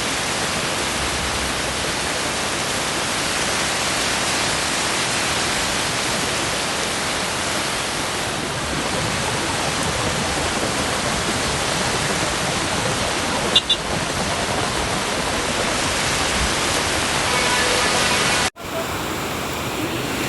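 Steady, loud rush of water, with no distinct drops or splashes. It cuts off abruptly near the end and gives way to a duller rush.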